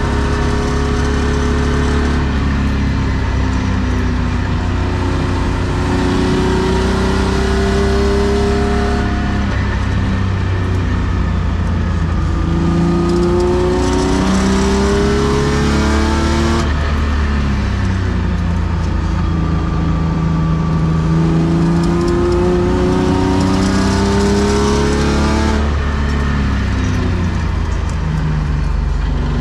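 BMW M50B25 2.5-litre straight-six running through Schmiedmann headers and a TA Technix sport exhaust, heard from inside the stripped cabin. It pulls up through the revs three times, rising in pitch and dropping back at each gear change, then settles lower near the end.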